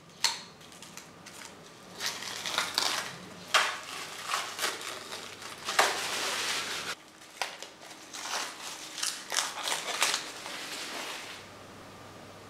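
Masking tape being peeled off the painted engine's pushrod tubes, with irregular crackling rips and crinkles that stop about a second before the end.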